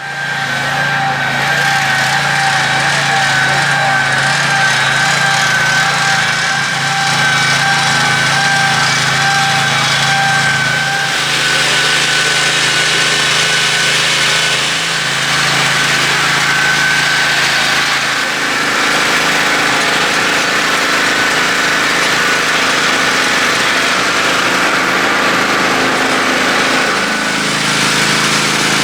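A sawmill running loud and steady, engine noise under a high whine. The sound shifts about eleven seconds in and again around eighteen seconds in.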